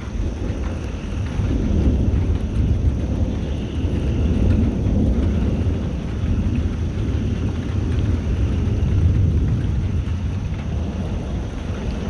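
Rolling thunder from a lightning storm: a deep, continuous rumble that swells and fades several times, over steady rain.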